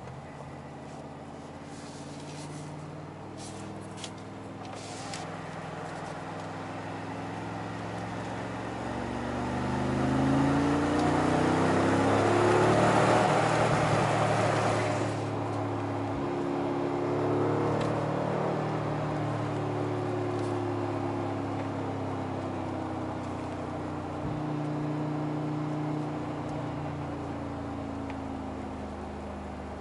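Mercedes-AMG G63's twin-turbo V8, heard from inside the cabin, pulling hard with its pitch climbing in steps through upshifts. It builds from about a third of the way in to its loudest around the middle, then eases back to a steadier, quieter run.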